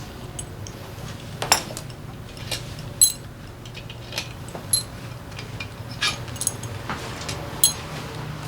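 Metal engine parts and hand tools clinking as they are handled and set down. There are a dozen or so sharp clinks, some ringing briefly, the loudest about three seconds in, over a steady low hum.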